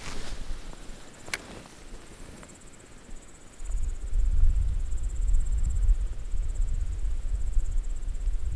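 A Daiwa Exist spinning reel being wound to retrieve a lure, a fine rapid high-pitched whirr starting about two and a half seconds in, after a single click about a second in. From about three and a half seconds in, a louder low rumble runs under it.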